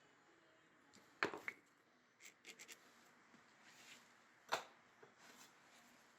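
Quiet handling on a workbench: two sharp knocks about a second in and about four and a half seconds in, as a wooden handle blank and tools are set down, with a few light clicks and soft scratches between.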